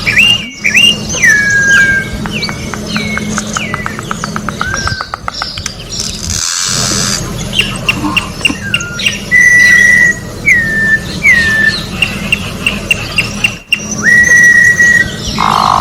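Campo troupial (corrupião, Icterus jamacaii) singing: loud whistled notes, many sliding down in pitch and some held steady, with a quick run of short notes about three seconds in. A brief hiss about six seconds in.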